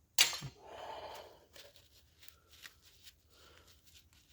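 Hand tools being handled: one sharp knock about a quarter second in, followed by about a second of rustling, scraping handling noise, then a few faint light ticks.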